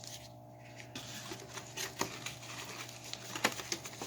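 Rustling with many small clicks and taps as boxes and packs of fireworks are handled, starting about a second in, over a faint steady hum.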